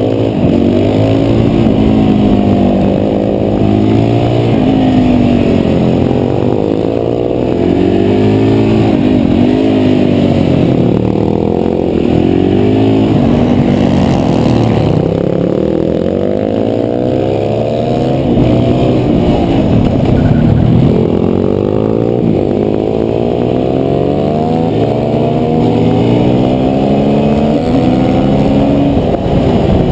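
KTM 525 supermoto's single-cylinder four-stroke engine at race pace, heard close from onboard: the revs climb and fall again and again through gear changes and corners.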